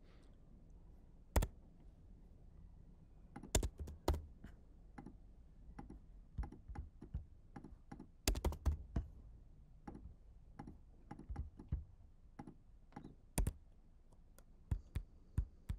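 Typing on a computer keyboard: scattered, irregular key clicks in short bursts with pauses between them, a few strikes louder than the rest.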